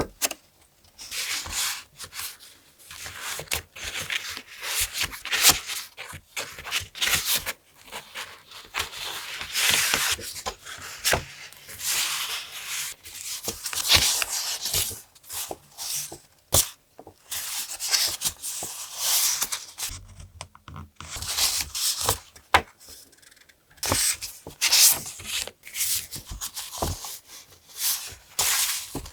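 Paper being handled close up: irregular rustling, rubbing and tearing strokes with small taps and clicks between them.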